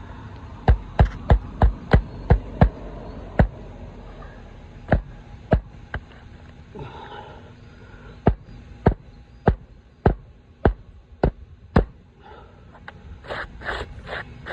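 Hand hammer driving roofing nails through an asphalt shingle, struck with the tab only partly lifted. A quick run of about seven blows, a few spaced strikes, then six evenly spaced blows about half a second apart.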